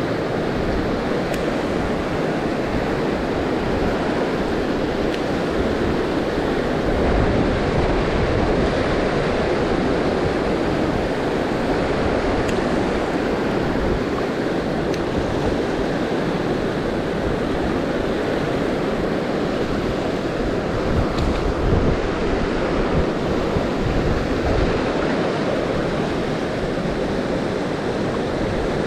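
Steady rush of a mountain stream's flowing water, with a rumble underneath.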